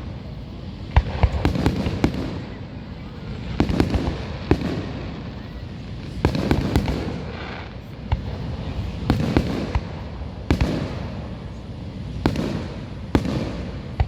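Fireworks going off in a steady series of sharp bangs and crackles, several every couple of seconds, each followed by a rumbling echo.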